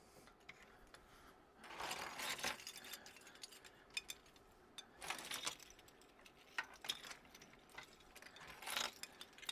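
Scattered light clicks and rattles of 3D-printed plastic dragons on zip-tie hangers being hung onto a 3D-printed display rack, with a few short rustles of handling.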